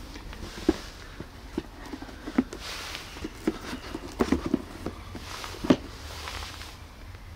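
Scattered light knocks and rustling from a cardboard shoebox as its lid is put on and handled.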